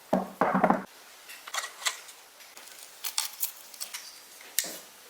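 Light clicks, taps and scrapes of tools and parts being handled during workshop repair work, with a short, louder, fuller clatter in the first second and scattered sharp clicks after it.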